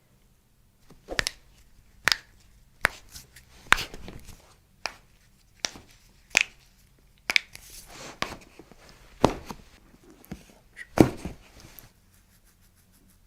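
A series of about a dozen sharp knocks or slaps, roughly one a second and a little uneven in spacing, stopping about a second before the end.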